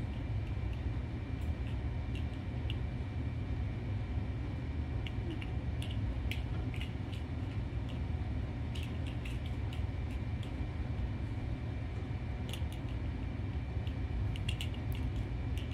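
Steady low room hum with a faint high whine throughout, over scattered light ticks and soft clicks from kittens batting a ball on a wire toy across a rug.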